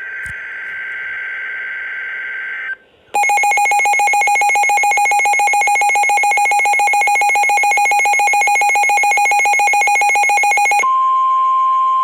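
Emergency alert tones: about three seconds of the buzzing two-pitch data burst of an alert header, a short pause, then a loud, rapidly pulsing alert tone for about eight seconds. Near the end it gives way to a steady single-pitch attention tone.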